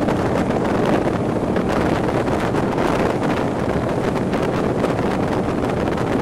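Wind buffeting the onboard microphone over the steady running of a Raider 26 powerboat at speed, its 460 cubic-inch Ford big-block engine and Volvo Penta DPX drive pushing the hull hard across choppy water.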